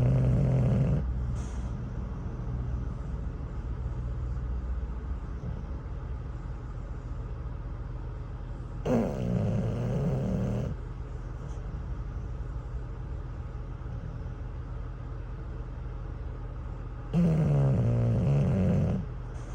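English bulldog snoring in deep sleep: three long snores spaced about eight seconds apart, each lasting about two seconds. The first trails off in the first second, the second comes about nine seconds in and the third near the end, all over a steady low rumble.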